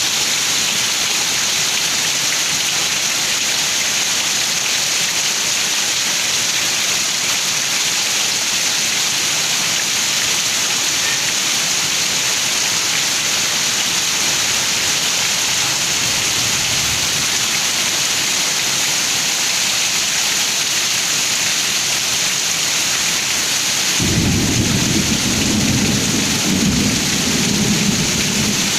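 Heavy downpour hissing steadily. About four-fifths of the way through, a deep rumble of thunder rolls in beneath the rain and keeps going.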